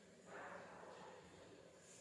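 Near silence: faint room tone, with a brief soft noise about a third of a second in.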